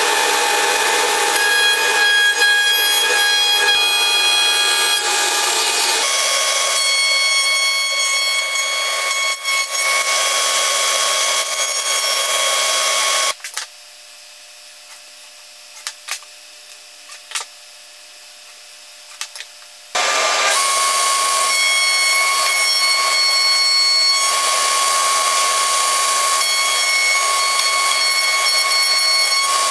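Table-mounted wood router running at full speed with a high whine while the bit cuts a board fed along the fence. The noise drops away about 13 seconds in, leaving a quieter steady hum and a few clicks, then comes back at full speed about 20 seconds in.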